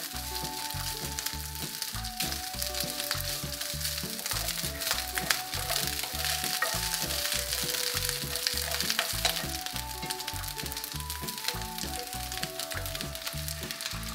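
Cooked rice sizzling and crackling in a hot cast-iron skillet while a wooden spatula stirs and pushes it around the pan. Background music with a simple melody and bass plays alongside.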